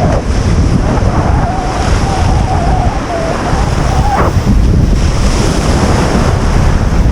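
Wind buffeting the microphone over the steady rush of ocean surf. A faint wavering tone runs for a few seconds in the first half, ending in a short rising sweep.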